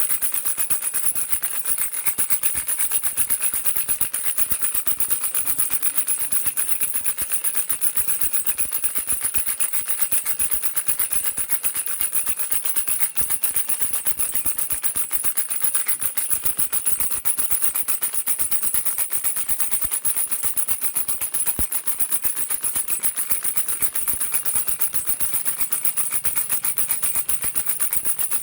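Baby rattle shaken without a break, its beads making a dense, fast, bright clicking that stays steady throughout.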